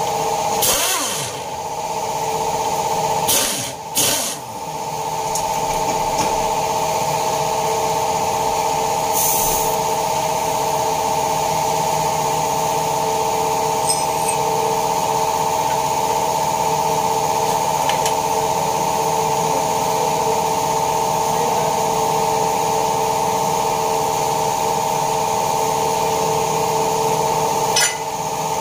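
A motor running steadily with a constant, even hum. Short bursts of noise cut in about one, three and four seconds in, and a brief higher hiss near ten seconds.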